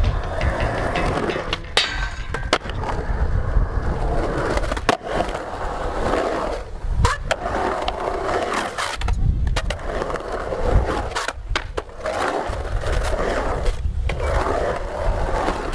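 Skateboard wheels rolling on a concrete bowl, the rolling noise swelling and fading as the skater carves up and down the walls, with several sharp clacks of the board hitting the concrete.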